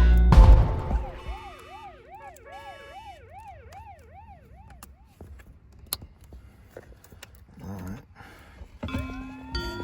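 Music cuts off about a second in, followed by a siren yelping in a fast up-and-down wail, about three sweeps a second, for roughly four seconds. Near the end a single tone rises and then holds.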